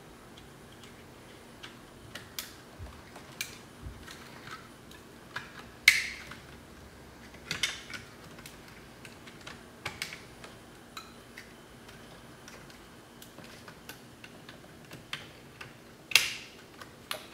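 Wiring harness connectors being pushed into the plastic power window switch panel of a 1997 Buick LeSabre door: scattered sharp plastic clicks and rattles, the loudest about six seconds in and again near the end.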